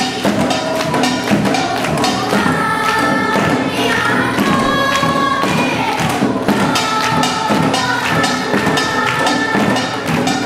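Children singing together in unison over Korean samulnori percussion: buk barrel drums and janggu hourglass drums beaten in a steady, dense rhythm, with bright metallic hits on top.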